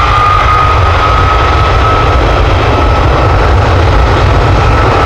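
Jet airliner engines at high power: a loud steady whine, levelling off after a rise in pitch, over a dense rush and deep rumble.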